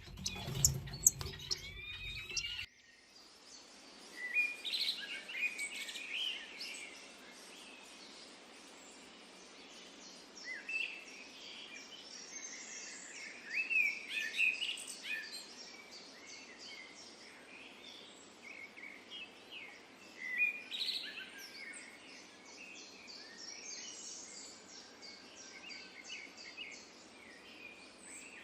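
Songbirds chirping and calling, many short chirps scattered and overlapping, over a faint steady hiss. It opens with a louder stretch of sliding bird calls over a low rumble and clicks, which cuts off abruptly about two and a half seconds in.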